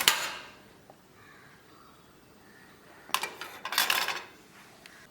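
Sharp click as a desktop RAM module is pulled free of its motherboard slot. About three seconds in comes a second short burst of clicking and clatter.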